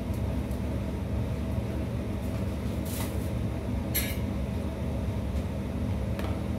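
Gas hob burner running on high under a wok of heating oil, a steady low rumble with a faint hum, and a couple of faint brief clicks about three and four seconds in.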